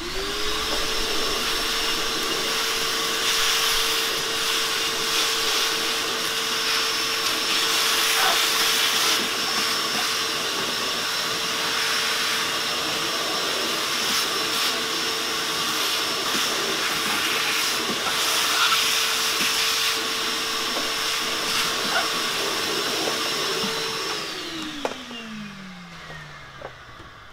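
Vacuum cleaner switched on, its motor spinning up at once and running steadily with a loud rush of air as the hose sucks dirt and debris out of the car's taillight recess. About 24 seconds in it is switched off and winds down, its pitch falling away.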